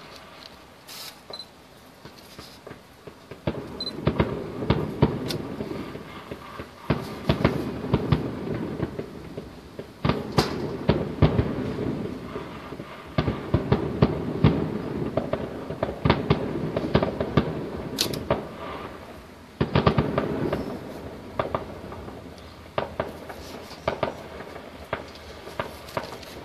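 Distant aerial fireworks display: a rapid, uneven string of bangs and crackles over a low rolling rumble. It starts sparse, grows dense about four seconds in, breaks briefly just before twenty seconds, then picks up again and thins out toward the end.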